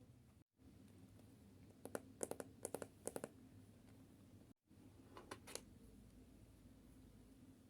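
Light clicks and taps from hands handling objects: a run of several about two to three seconds in and a few more about five seconds in, over quiet room tone. Twice the sound drops out to total silence for a moment.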